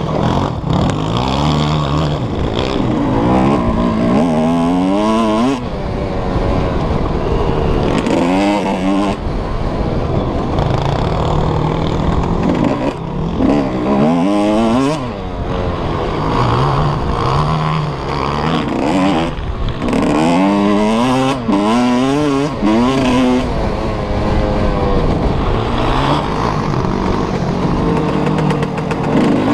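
Suzuki RM125 two-stroke single-cylinder motocross engine revving hard under full throttle, its pitch climbing and dropping again and again as the rider accelerates, shifts and backs off for the turns.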